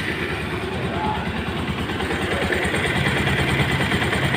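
Bajaj Pulsar 150's single-cylinder engine idling steadily just after being started, its engine freshly rebuilt to cure an engine noise problem.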